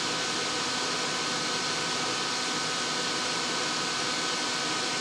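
Soldering fume extractor fan running, a steady airy hiss with a faint whine in it, a little on the loud side.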